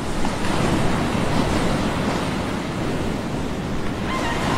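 Steady rushing noise, like surf, opening a pop track before the beat and vocals come in; faint held tones enter near the end.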